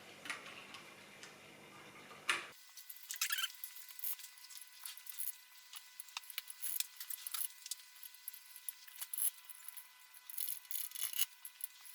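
PBT keycaps clicking and clattering as they are pressed one after another onto a mechanical keyboard's switches and handled. The sharp plastic clicks come irregularly, several a second, and the loudest is about two seconds in.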